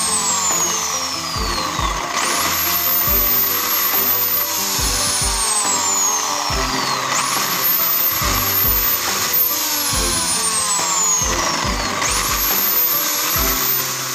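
Background electronic music with a steady beat and repeating sweeping effects.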